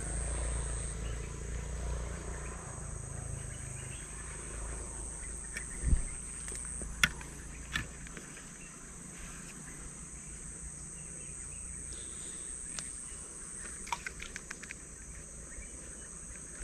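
Forest ambience with a steady high-pitched insect drone that drops out and returns, broken by a few sharp clicks about six to eight seconds in and again near the end.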